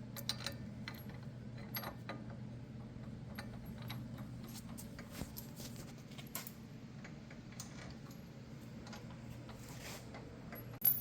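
Scattered light metallic clicks and clinks from handling a brake caliper bracket and its bolts at a truck's wheel hub, over a steady low hum, with one sharper click near the end.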